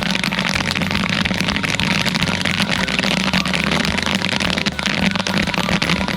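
Popcorn kernels popping densely in hot coconut oil in a kettle corn popper, many rapid overlapping pops over the machine's steady low hum.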